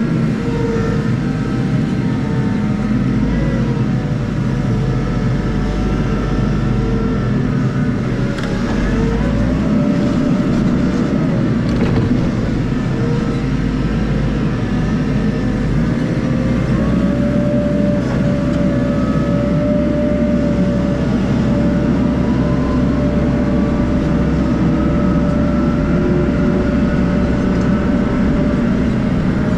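Hitachi 120 wheel loader's diesel engine running steadily under load, heard from the cab, with a whine that slowly rises and falls in pitch as the loader drives and works its bucket.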